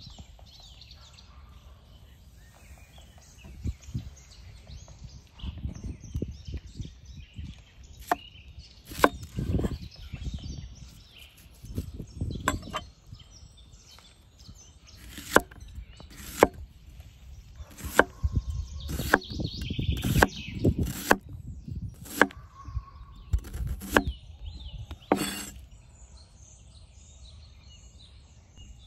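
Chopping: about a dozen sharp knocks at an irregular, unhurried pace through the middle stretch, with faint birdsong before and after.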